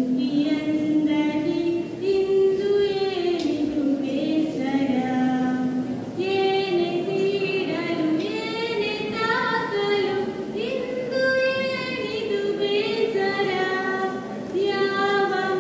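A girl singing solo into a microphone, without accompaniment, holding long notes that slide from one pitch to the next.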